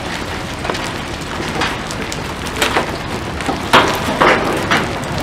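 Hail falling hard onto pavement and other hard surfaces: a steady hiss of falling ice and rain broken by scattered sharp cracks of individual hailstones, the loudest nearly four seconds in.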